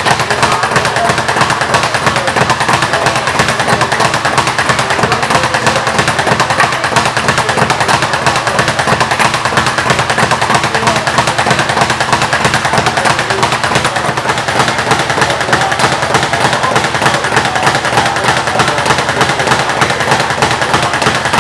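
Leather speed bag punched in a fast, unbroken rhythm, rebounding off the wooden platform board in a rapid rattle of impacts.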